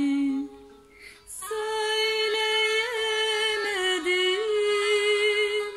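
A woman's voice singing slowly and unaccompanied. A held note ends just after the start, and after a short pause one long, wavering held note follows with small turns in pitch.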